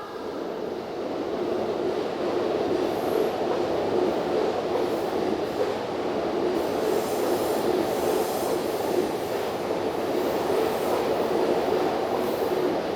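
Electric train passing over a level crossing, its wheels rolling on the rails in a steady, loud rumble. The rumble builds over the first two seconds and then holds.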